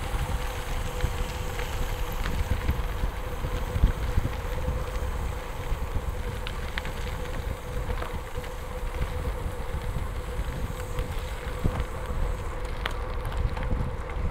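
Wind noise on the microphone of a moving bicycle, with gravel-bike tyres rolling over a gravel road. There is a faint steady hum and a few sharp ticks.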